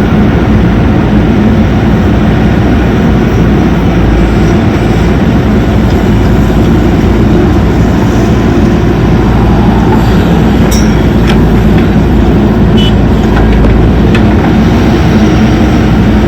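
Heavy diesel engine of earthmoving machinery running steadily and loudly under work, with a few light sharp clicks about two-thirds of the way through.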